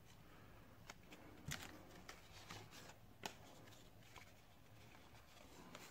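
Faint handling noise of baseball cards and a torn pack wrapper: soft rustling with a few light clicks, the clearest about a second and a half and just over three seconds in.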